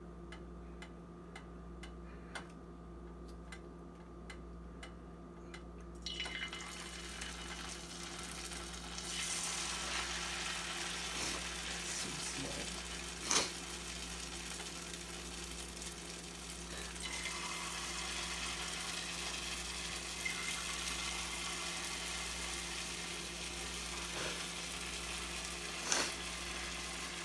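Churro dough frying in hot oil, sizzling. The sizzle starts about six seconds in, grows louder a few seconds later and then holds steady, with a couple of sharp clicks along the way.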